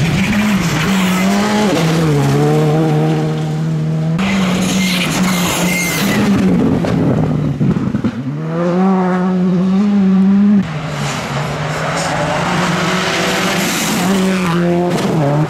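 Four-cylinder rally cars, among them a Škoda Fabia and a Subaru Impreza, passing one after another at full throttle on gravel. Engine notes hold high, step down at gear changes and rise again, over the hiss of loose gravel thrown from the tyres.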